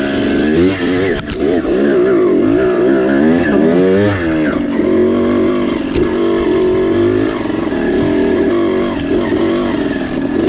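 Off-road motorcycle engines, more than one, revving hard, their pitch swinging up and down quickly for the first few seconds and then running steadier, as the trail bikes climb a steep slope.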